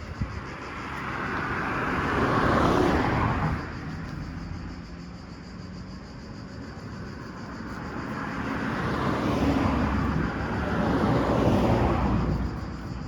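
Two vehicles passing by, each sound rising and then fading: one about two to three seconds in, and a longer one from about eight to twelve seconds.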